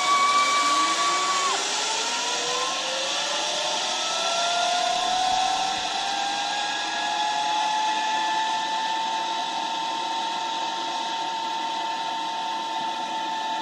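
Zipline trolley pulleys running along the steel cable as a rider slides away: a rising whine that climbs in pitch over the first several seconds as the trolley gathers speed, then holds steady over a steady hiss. A brief high held tone sounds in the first second and a half.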